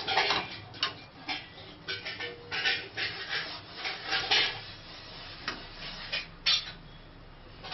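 A cut onion half rubbed back and forth over an oiled flat iron griddle pan (tawa), making a series of irregular scrubbing swishes. The onion and oil are rubbed in so the dough does not stick to the pan.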